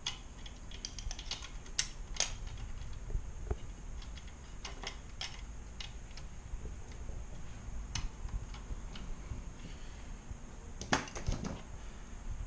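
Irregular light clicks and clinks of small metal parts and tools being handled while clamps are fitted loosely on the key machine, with a couple of louder knocks about two seconds in and near the end.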